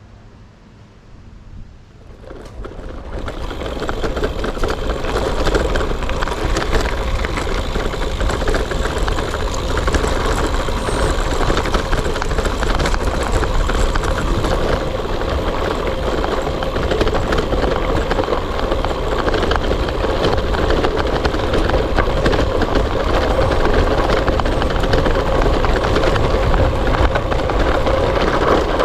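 Gravel bike rolling over a rough gravel track: a steady rumble of tyres on gravel and the rattle of the bike. It builds up over the first few seconds as the bike picks up speed, then holds loud.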